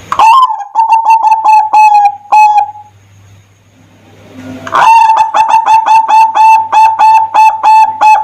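Zebra dove (perkutut) calling loudly in two bouts of quick repeated cooing notes, about four or five a second; the second bout starts about five seconds in, after a short pause.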